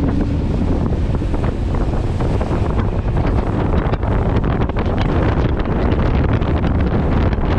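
Heavy wind buffeting the microphone over the rush of water and spray from a rigid inflatable boat running at speed.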